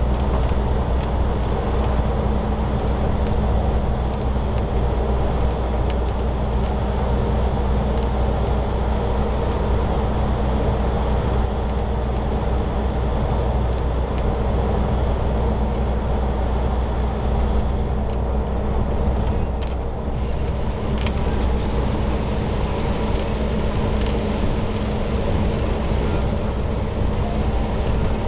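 DAF XF truck cruising at steady speed, heard from inside the cab: a constant low engine and road drone with a steady hum, and a few faint ticks.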